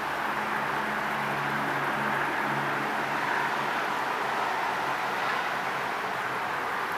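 Steady rushing background noise of a train station, with a faint low hum of a few steady tones for the first few seconds that then fades.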